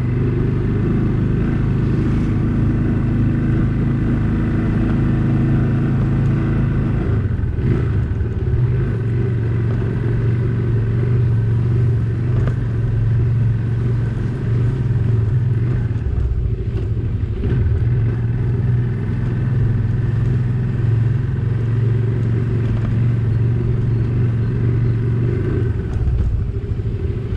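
Small motorcycle engine running steadily as it is ridden at low speed on a dirt road, its note dipping briefly a few times.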